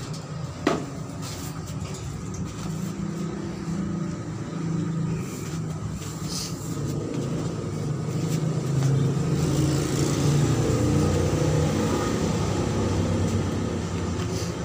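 A motor engine running steadily, growing louder after the middle and then easing off, with a sharp knock about a second in.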